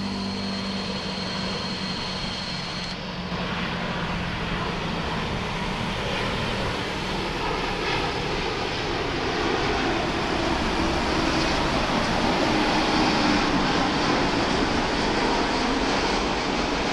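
For the first three seconds, road traffic with a motorcycle engine running, which cuts off suddenly. Then the engines of a Boeing 787 jet airliner on final approach, a steady rushing jet noise that slowly grows louder as the plane comes down to the runway.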